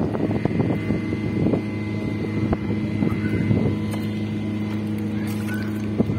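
A steady low machine hum, like a motor running nearby, with wind on the microphone. Over it come small splashes and knocks as a plastic clog is dunked and handled in a plastic tub of water, mostly in the first second and a half.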